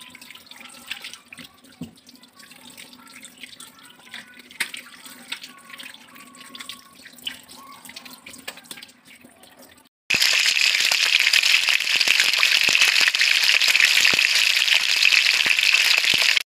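Tilapia pieces being rubbed and rinsed by hand in a stainless steel sink: faint wet squelches and light splashes over a low steady hum. About ten seconds in it cuts to a loud, steady sizzle of tilapia pieces frying in oil in a wok.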